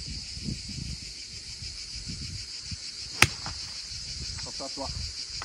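Steady high chirring of insects, with a single sharp crack of a golf club striking a ball about three seconds in.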